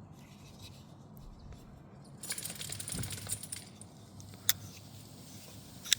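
Titanium folding knife being handled: a second and a half of metallic jingling and rustling, then two sharp clicks a bit over a second apart, fitting the blade of the bearing flipper snapping open and shut.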